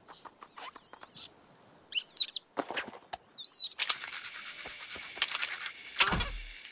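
Cartoon sound effects: high squeaky chirping glides and a few clicks, then a hissing, whirring stretch. Near the end a quick falling whistle drops into a low thud.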